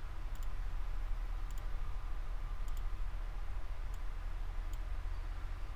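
Computer mouse clicking faintly five times, about one click a second, over a steady low hum in the recording.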